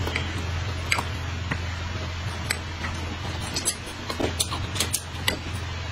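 Two people eating: scattered small clicks of chopsticks on bowls and plates, and chewing, over a steady low hum.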